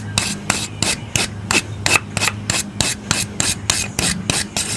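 Handheld wire brush scrubbing a rusty steel railroad spike, with quick back-and-forth scratching strokes about four a second.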